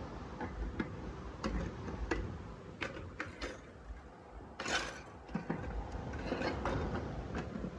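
Hard plastic parts of a mini food processor clicking and knocking as the motor handle is pushed onto the chopper lid. Scattered sharp clicks, the loudest about four and a half seconds in.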